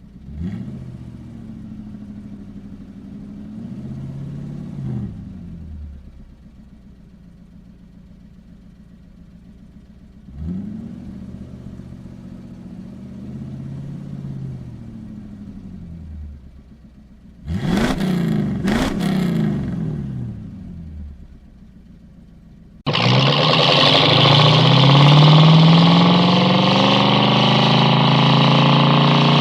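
Ford Mustang engine revving: several slow rev-ups that fall back to a low idle, then two quick sharp throttle blips with crackle. Near the end a much louder full-throttle run cuts in suddenly, the engine note climbing steadily as it accelerates.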